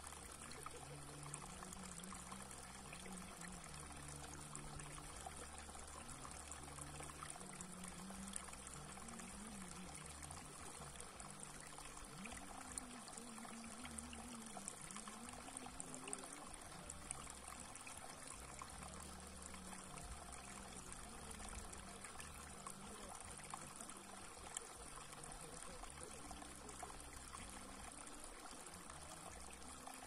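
Shallow water trickling down a narrow rock channel and spilling into a pool: a steady, faint babble with fine small splashes.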